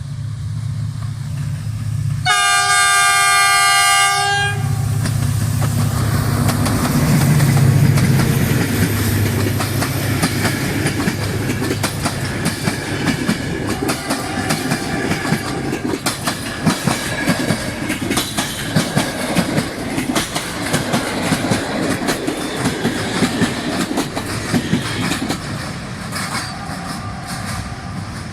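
Diesel passenger train passing close by. Its locomotive sounds one chord horn blast of about two seconds, and its diesel engine runs loudly as it goes past. After that comes a long run of wheel clicks as the carriages pass over rail joints, fading near the end.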